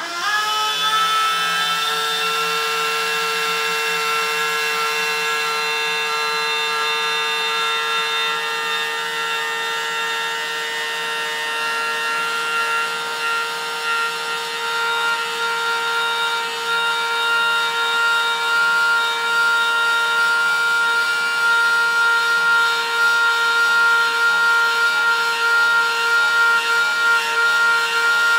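An RC dump truck's electric lift motor whining steadily as it tips the dump box up. It starts abruptly with a brief rise in pitch, then holds one steady tone, growing a little louder in the second half.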